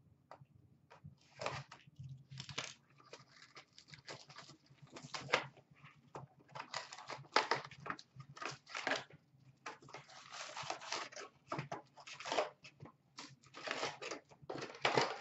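Cardboard box of hockey card packs being torn open and handled by hand, in irregular bursts of tearing, rustling and crinkling packaging.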